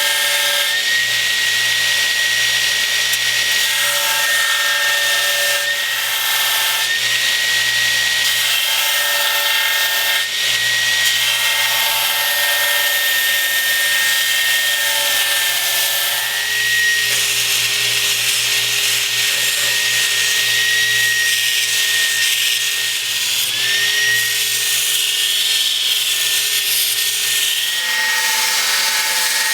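Electric belt grinder running with a steady whine while a knife handle is ground down, the grinding noise changing each time the work is pressed to the belt or lifted off. The whine dips briefly in pitch about two-thirds of the way through as the motor takes load.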